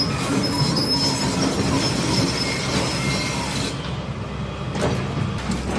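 Heavy demolition machine at work: a rumbling engine with high-pitched metal squealing and grinding. The squeal and hiss fall away about two-thirds of the way through.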